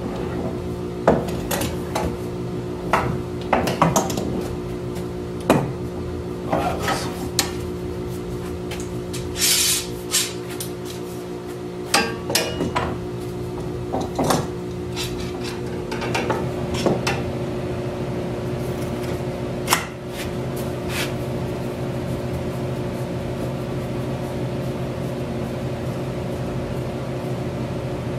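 Steel bar clamps clanking, clicking and knocking as they are slid along and tightened during the glue-up of a wooden gate panel with spindles. The strikes are irregular and stop about three quarters of the way through, leaving only a steady hum.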